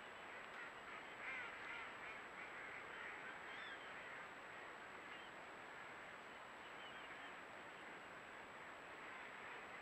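A large flock of ducks calling together, heard faintly: a dense chorus of overlapping quacks and short chattering calls, a little louder in the first few seconds.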